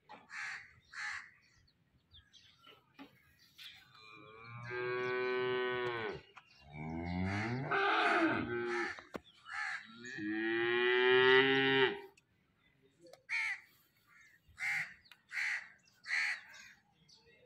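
Cattle mooing: three long moos one after another, the middle one dipping and rising in pitch. Crows caw in short calls about a second in and again near the end.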